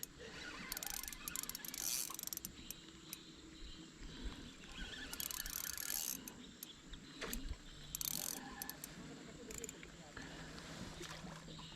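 A small spinning fishing reel being wound in, giving irregular faint clicks and short swishes of line and handling, with one sharper click about seven seconds in.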